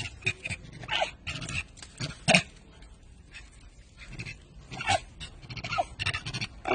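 Macaque giving several short whimpering cries, each dropping in pitch, the loudest about two seconds in.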